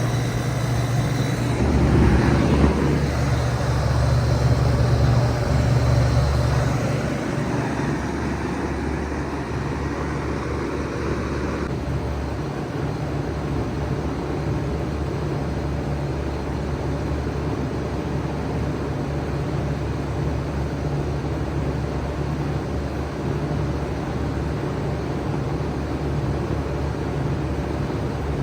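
2007 five-ton Bard wall-hung heat pump running in cool mode: the compressor hums low and the fan whooshes steadily. The deep hum is heaviest for the first several seconds, then settles to an even level.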